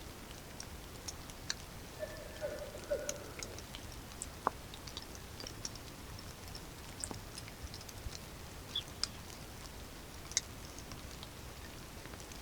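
Steady rain with irregular sharp drips and taps of drops landing close by. A brief tone sounds about two seconds in and lasts around a second and a half.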